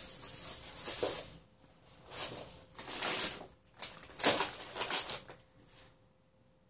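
Plastic bag crinkling and rustling as it is handled, in about five short bursts, the loudest a little after four seconds in.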